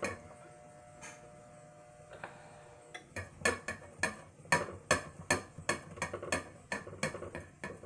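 A utensil stirring melting goat milk soap base in a saucepan, knocking and scraping against the pan. A couple of single clicks come first, then from about three seconds in a quick run of stirring strokes, about four a second.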